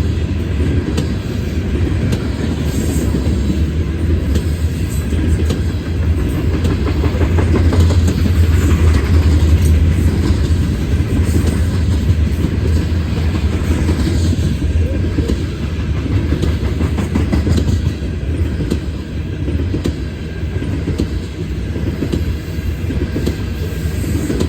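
Norfolk Southern freight train rolling past. A steady, loud rumble of rail cars carries a stream of wheel clicks over the rails.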